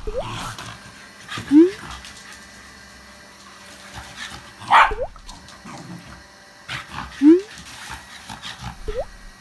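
Shiba Inu barking and yipping in short, rising calls, about five times with pauses of a few seconds between, at a vacuum cleaner she dislikes.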